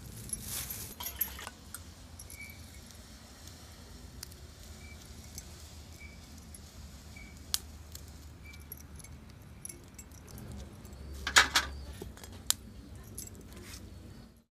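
Steel and aluminium kitchen utensils and a knife clinking against plates and pots, in scattered light clicks, with a louder burst of clatter about eleven seconds in.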